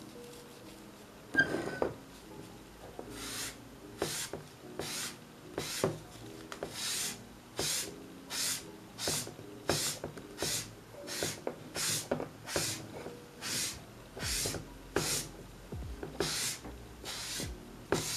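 Paint being stroked onto the edge of a small stretched canvas: a steady run of short, dry brushing strokes, about one every three quarters of a second, after a single knock about a second and a half in.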